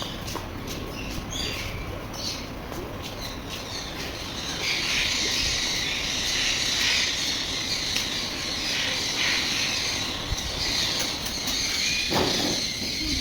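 Many aviary birds calling: scattered squawks at first, then from about four seconds in a dense, unbroken high-pitched chatter of many birds at once.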